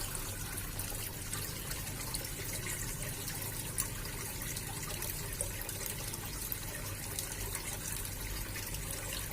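Water running and trickling steadily into a small fish pond, with a few faint ticks now and then.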